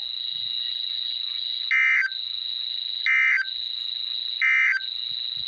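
Emergency Alert System SAME end-of-message code on a weather radio broadcast: three short, raspy data bursts about a second and a half apart, over a steady high tone. The bursts signal the end of an alert message.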